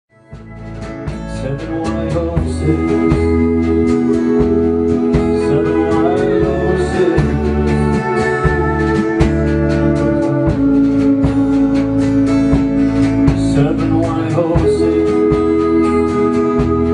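A man singing into a microphone with acoustic guitar accompaniment, a rehearsal performance. The music fades in over the first couple of seconds, then holds steady.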